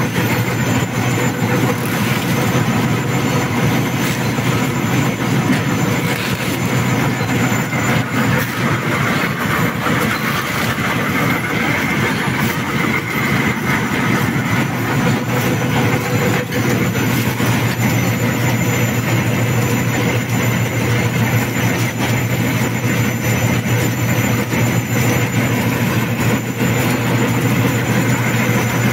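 Two-colour stack-type flexographic printing press running at production speed, about 147 metres a minute: a steady mechanical rumble and clatter from its roller decks and gear trains, over a constant low hum.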